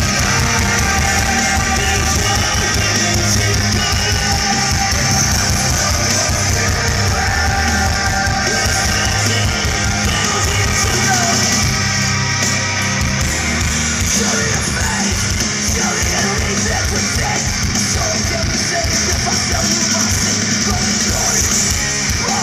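Live rock band with distorted electric guitars, bass and drums, and yelled vocals, played loud through a large festival PA and heard from within the crowd.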